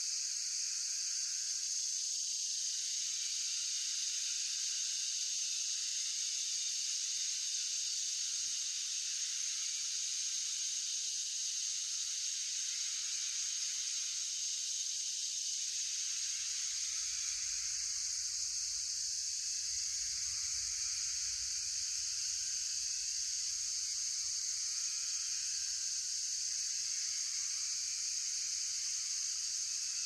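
Crickets and other night insects singing in a steady, high-pitched chorus, with fainter calls wavering beneath it.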